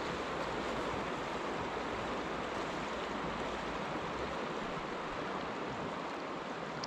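Steady rush of a fast, shallow river flowing over a gravel bed.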